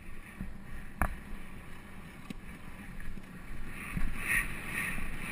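Hoofbeats of a cantering polo pony thudding on turf under wind rushing over a rider-mounted action camera's microphone, with a sharp knock about a second in.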